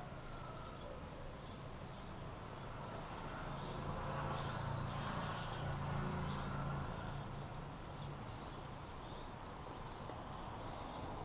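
Outdoor background: a low rumble that swells through the middle and then fades, with faint, scattered bird chirps above it.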